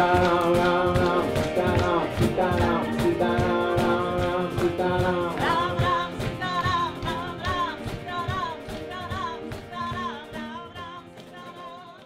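Kirtan music: devotional singing over acoustic guitar and percussion, fading out steadily over the last several seconds.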